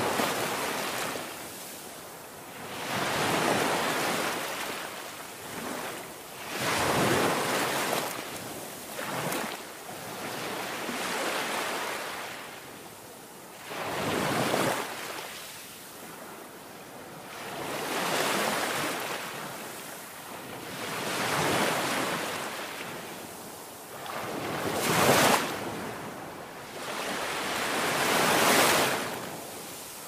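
Sea waves breaking against a rocky outcrop and washing back. The surf swells and fades about every three seconds.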